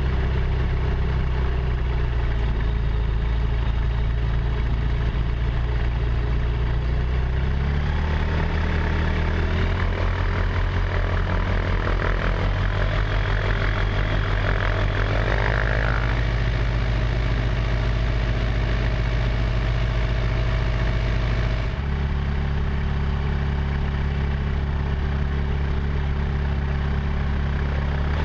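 Steady drone of a P92 ultralight's engine and propeller, its pitch shifting in steps several times.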